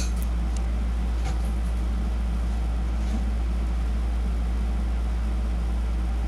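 A steady, unchanging low hum, with a few faint light ticks.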